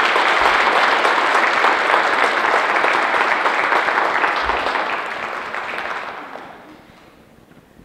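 Audience applauding, a steady clatter of clapping that fades out near the end.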